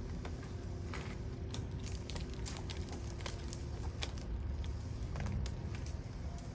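Scattered light crackling and ticking of pecan branches and leaves brushing and snapping as a limb is let down on a rope, over a low rumble of wind on the microphone.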